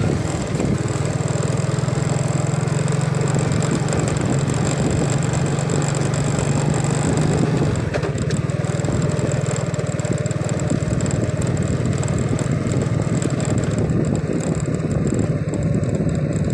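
Small motor scooter engine running steadily at low road speed, with a constant drone and a broad rushing noise from the ride.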